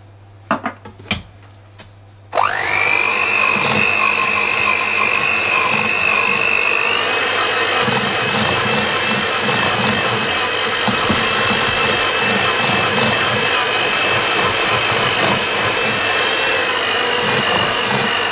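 Electric hand mixer switching on a couple of seconds in, its motor whining up to a steady high pitch as the beaters whip cake batter in a plastic bowl, then switching off at the end. A few light knocks come before it starts.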